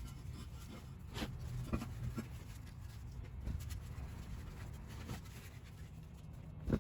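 Faint scratchy rubbing and a few soft ticks of fibreglass exhaust heat wrap being handled and wound around the header tubes.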